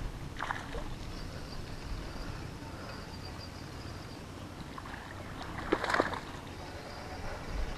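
Steady low rumble of wind and water, with a hooked small largemouth bass splashing at the surface about six seconds in.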